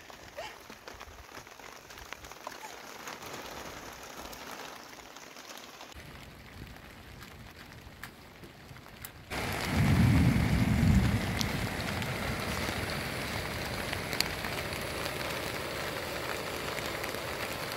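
Rain falling on a tent's plastic sheeting: a steady hiss with scattered drop ticks, getting louder about nine seconds in, with a brief low rumble just after.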